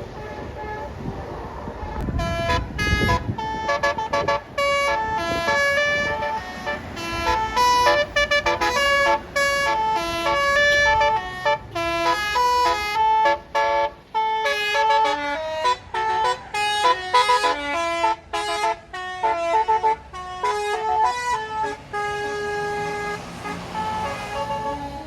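A bus's Basuri telolet horn playing a fast melody of stepped notes, starting about two seconds in and running almost to the end, with a low rumble as it begins.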